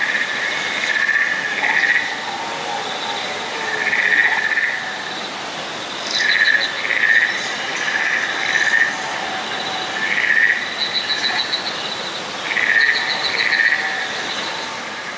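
Waterfall hiss under repeated chirping creature calls that come every second or two, over a steady high insect-like drone, with two short rapid trills near the end.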